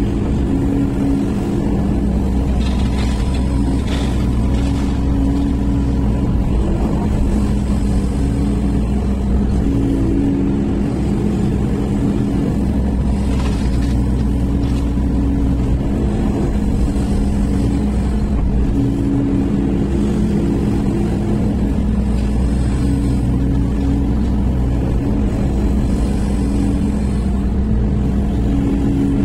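Sany SY215C excavator's diesel engine running steadily, heard from inside the cab, its note shifting every few seconds as the machine swings, digs and dumps.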